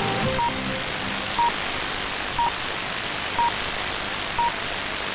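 Polish Radio Program 1's hourly time signal received on 225 kHz longwave AM: five short beeps, one a second, over steady radio hiss, marking the top of the hour. Music fades out just at the start.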